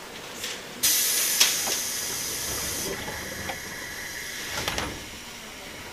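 Sudden loud hiss of compressed air let out by a JR East 201-series electric train's pneumatic equipment at a station stop, starting about a second in, with a sharp knock half a second later. After about two seconds the hiss drops to a softer steady hiss that fades out.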